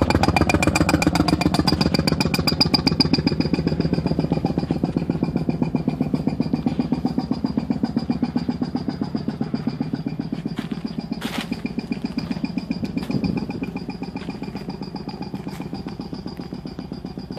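Pneumatic boring rig for an underground piercing mole running: a rapid, even mechanical pulsing with a steady high whine in it. It eases off somewhat after about thirteen seconds, and a few sharp clicks come around eleven seconds.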